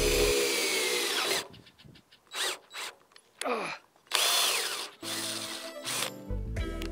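Cordless drill boring through an aluminum plate on a sailboat mast, in several short runs, its motor whine dropping in pitch as it slows at the end of each run. Background music comes in near the end.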